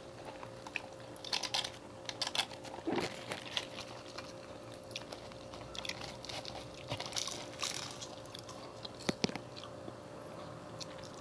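Two people eating fried chicken and French fries: scattered crunchy bites and wet chewing and smacking close to the microphone, over a faint steady hum.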